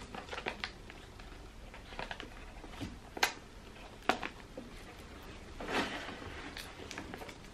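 A small cardboard box with a clear plastic window being opened by hand: soft handling rustles, a sharp click about three seconds in and another about a second later, then a brief scraping rustle near six seconds.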